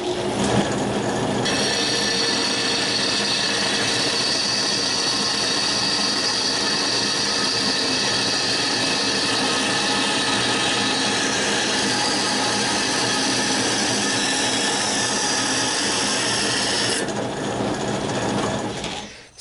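Wood bandsaw converted to cut metal running steadily while its blade saws through a quarter-inch aluminum bar. The high-pitched cutting noise starts about a second and a half in and stops a couple of seconds before the end, and the saw's sound then fades away.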